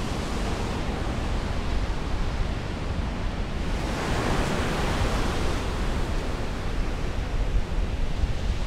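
Steady rush of ocean surf and wind, swelling briefly about four seconds in.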